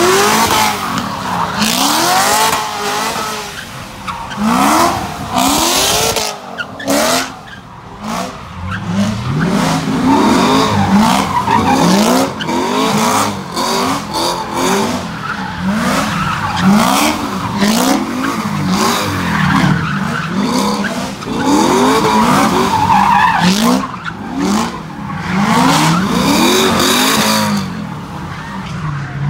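A car doing donuts: its engine revs up over and over, about once a second, while the tires squeal and skid.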